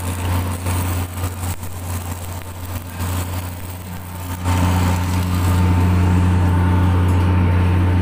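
Steady low hum of an engine running, which becomes louder and steadier about halfway through.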